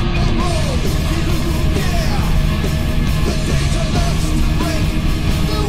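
Loud, heavy rock music with a singing voice over a dense, driving backing.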